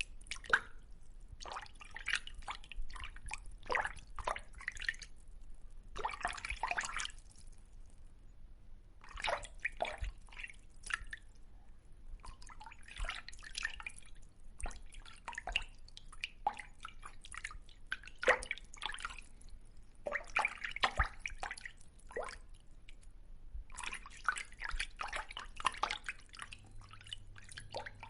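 Fish sound effect: runs of quick wet pops and clicks, like dripping water, in bursts of one to several seconds with short gaps between them.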